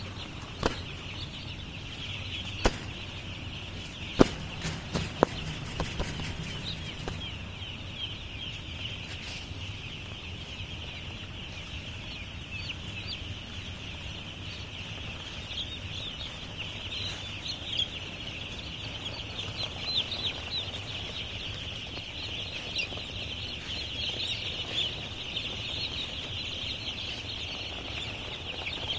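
A large flock of young chicks peeping all at once, a dense high chorus of countless overlapping chirps, with a low steady hum underneath. A few sharp clicks stand out in the first several seconds.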